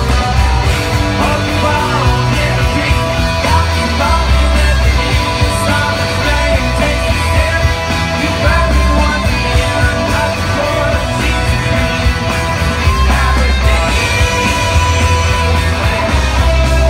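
Live rock band playing at full volume, with electric guitars, bass, drums and a singer's vocals, recorded from within the audience.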